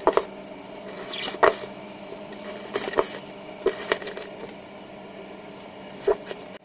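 Nylon cable tie being pushed through holes in a thermocol foam fuselage and handled: scattered short plastic clicks and scrapes in a few small clusters.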